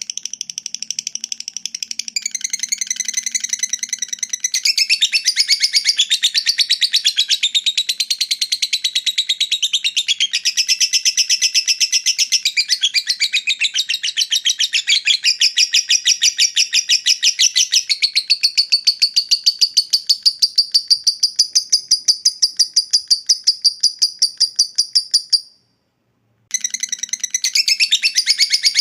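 Lovebird's long ngekek call: a fast, unbroken chattering trill of high notes kept up for about twenty-five seconds. It stops for about a second near the end, then starts again.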